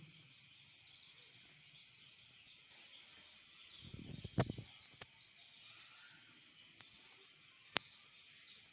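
A flock of young chicks peeping faintly and continuously, with a few sharp clicks and knocks: a loud cluster about halfway through and another sharp click near the end.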